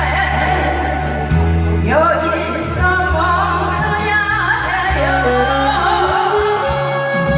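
A singer's voice carrying a melody over a recorded accompaniment with steady held bass notes, sung live on stage.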